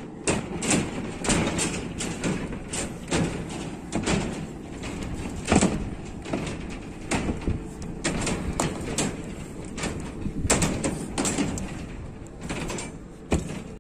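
Irregular knocks and thuds, some sharp and some dull, over a low rumbling background noise.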